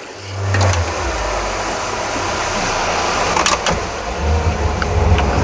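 Honda 90 outboard motor, a four-stroke, running as the boat gets under way, with the rush of wake water and wind. The engine hum comes up about a quarter second in and grows stronger near the end.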